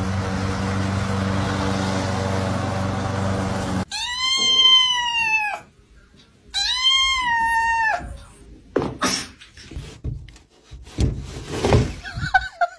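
Lawn mower engine running steadily, cut off abruptly. Then a kitten meows twice, two long, loud, drawn-out meows, followed by several short irregular noises.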